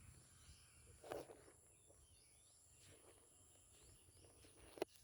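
Near silence: faint outdoor ambience with a steady high-pitched hum. There is a soft knock about a second in and a sharp click near the end.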